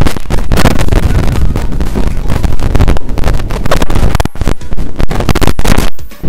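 Loud, gusty wind buffeting the microphone, with short lulls about four seconds in and near the end.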